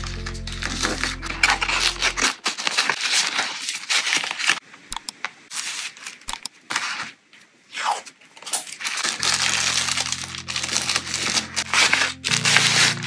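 Tissue paper and packaging crinkling and rustling as they are handled and folded. Soft background music plays under it at the start and again from about nine seconds in.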